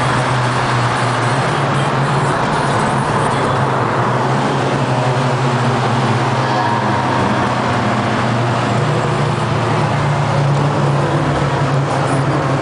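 Honda Civic four-cylinder engine with an aftermarket exhaust, driving along at a steady engine note.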